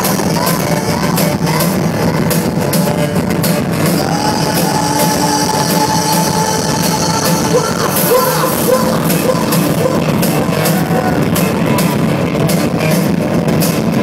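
Live rock band playing loudly through a concert PA, with electric guitars, drums and sung vocals.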